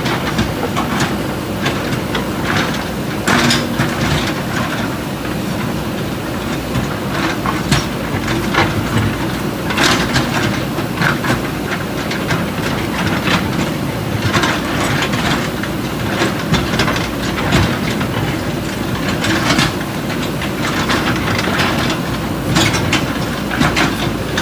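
JCB 3DX backhoe loaders' diesel engines running steadily under work, with irregular clanks and knocks of the buckets striking and dragging broken concrete and rubble.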